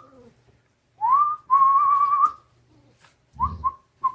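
A person whistling to call puppies: a rising whistle that turns into a long, slightly wavering note, then two short whistle chirps about three and a half seconds in.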